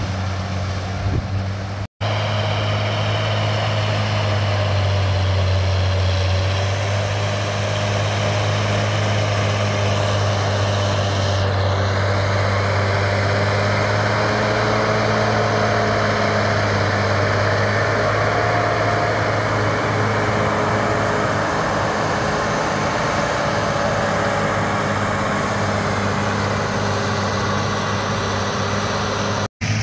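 John Deere 7800's six-cylinder diesel engine running steadily under load as the tractor pulls a mounted cultivator through the soil. The sound breaks off for an instant twice, about two seconds in and near the end.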